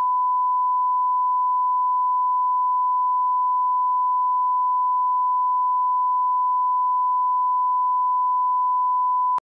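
Steady 1 kHz sine-wave test tone, the line-up reference tone that plays with colour bars. It cuts off suddenly near the end.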